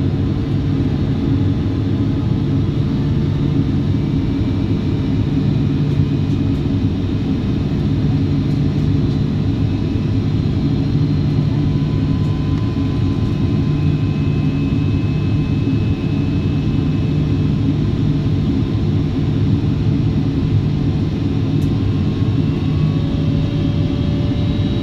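Airliner cabin noise on approach: the Boeing 777-200ER's GE90 engines and the airflow heard from inside the cabin as a deep, steady noise, with faint thin tones above it.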